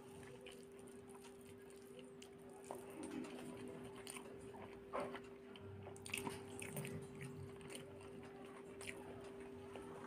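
Close-up eating sounds: rice and curry being mixed by hand, then about halfway in a curried boiled egg bitten and chewed with soft, wet mouth smacks. A steady low hum runs underneath.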